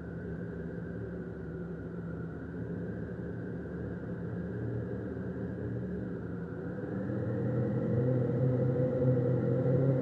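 Synthesized wind from the Tonsturm Windmaschine plugin's Subtle Breeze preset: a steady wind noise carrying low, held resonator tones. It swells louder about seven seconds in as its settings are tweaked.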